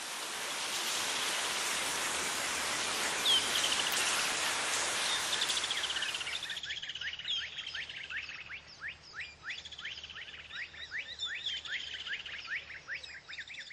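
Rushing stream water with birds chirping over it. About halfway the water noise cuts off abruptly, leaving a steady run of quick, repeated bird chirps.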